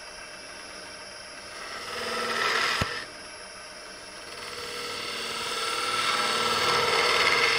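Skew chisel shaving a spinning magnolia bottle blank on a wood lathe, over the lathe's steady hum. One cut swells and ends with a sharp click about three seconds in, then a second, longer cut builds up through the rest.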